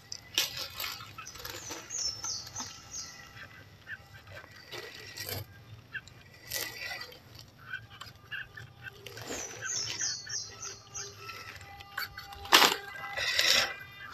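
Small RC crawler's tyres crackling and snapping over dry leaves and twigs on dirt, with a louder snap near the end. A bird calls twice in a quick descending run of high notes.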